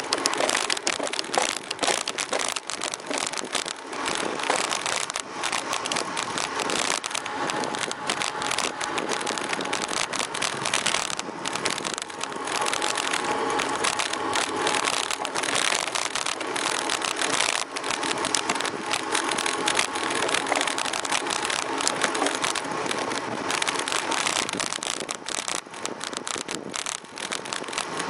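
Ride noise picked up by a camera clamped to a bicycle: a continuous rush of wind and tyres on the road, full of small rattling clicks and knocks from the mount shaking over the bumps.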